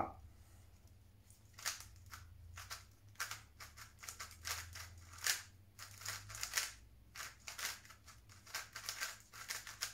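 Magnetic Tornado V2 3x3 speedcube being turned fast by hand: light plastic clicks and clacks of the layers in irregular bursts, starting after a pause of about a second and a half.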